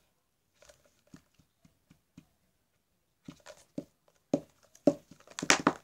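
A small plastic bottle being handled and knocked against a carpeted floor: scattered soft taps and clicks, sparse and faint at first, louder and closer together from about three seconds in.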